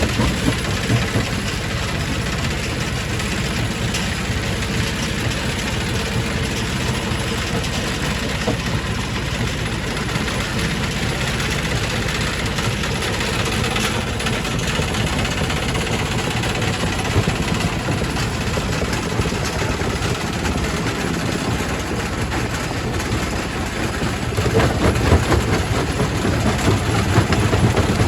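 Quarry primary rock crusher running, a steady heavy machine noise with dense clatter of stone being crushed. It gets louder and rougher near the end.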